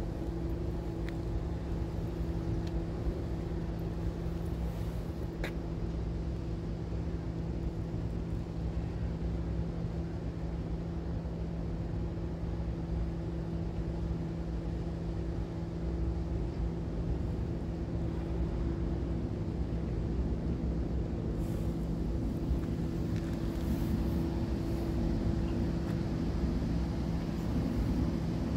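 A ship's diesel engine droning at one unchanging pitch over a steady low rumble.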